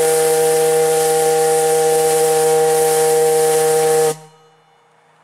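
Lighthouse fog signal steam whistle, blown on compressed air, sounding one loud, steady blast: a low chord-like tone with a hiss above it. It cuts off suddenly about four seconds in, one of the 5-second blasts of the 1890s fog signal pattern.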